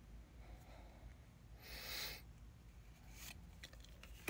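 Faint swish of a Pokémon trading card sliding against the cards in hand as one card is moved to reveal the next, about two seconds in, with a shorter rub just after three seconds.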